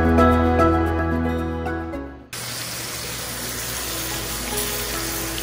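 Background music fades and cuts off about two seconds in. It gives way to a steady hiss of a steak sizzling in hot oil in a ridged grill pan.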